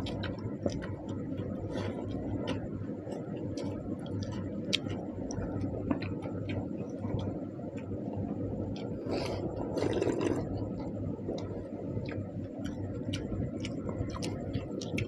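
Eating sounds from a meal of water-soaked rice (panta bhat): many small, irregular wet clicks and squishes of hand-eating and chewing, over a steady low hum, with a brief louder noisy swell about nine to ten seconds in.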